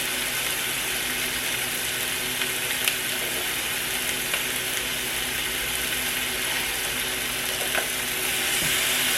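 Chicken drumsticks searing in hot oil in a frying pan: a steady sizzle with a few small pops of spattering fat, growing a little louder near the end.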